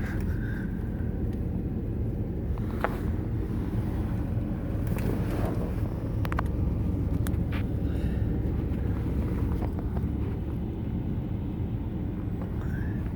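A car driving: a steady low rumble of road and engine noise, with a few faint clicks scattered through it.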